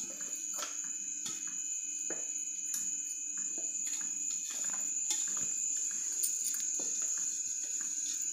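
A steady high-pitched insect trill, with scattered light clicks and taps throughout.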